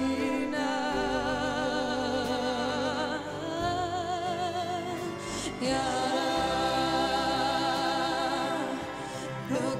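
A woman singing long, sustained notes with wide vibrato, accompanied by acoustic guitar and double bass, sung in Yolngu Matha rather than English.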